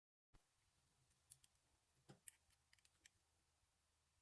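Near silence: faint room tone with a few faint, scattered clicks.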